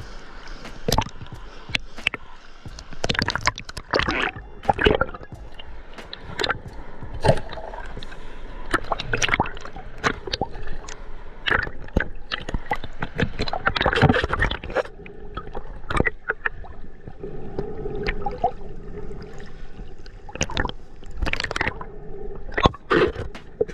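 Water sloshing and gurgling close to the microphone, broken by many irregular splashes and knocks.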